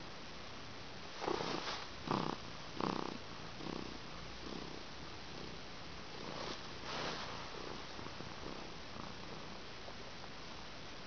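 Domestic cat purring in rhythmic pulses, one with each breath, with three louder bursts between about one and three seconds in.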